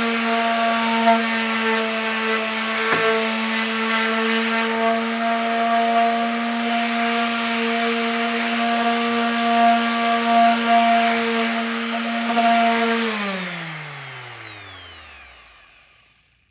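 Electric palm sander running steadily against a wooden 2x4: a motor hum under a scratchy sanding rasp. About 13 seconds in it is switched off, and the hum falls in pitch and fades as the sander spins down to a stop.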